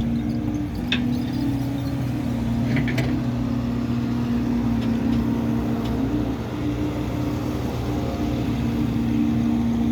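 Heavy diesel engine of an excavator running steadily while loading, with a few short clicks about one, three and six seconds in.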